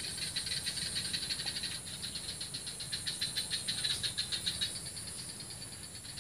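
Swamp ambience: a rapid, rhythmic pulsed call from a small swamp creature, about ten pulses a second, fading out about five seconds in, over a steady high-pitched hiss and a low rumble.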